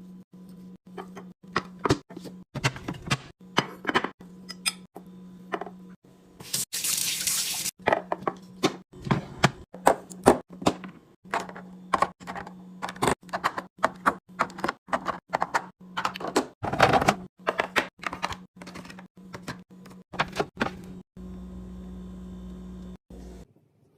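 Food containers, lids and packaging being handled and set down while restocking a fridge: a rapid series of clicks, taps and knocks, with a brief rushing sound about six and a half seconds in, over a steady low hum.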